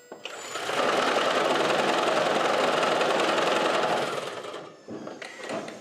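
2011 Toyota Prius's 1.8-litre four-cylinder engine starting and running on three cylinders, with the coil for cylinder 1 disconnected, making a loud, horrible noise that dies away about four and a half seconds in. The noise comes from the torsion damper between engine and transaxle, set off by the single-cylinder misfire, and is easily mistaken for a failed transaxle.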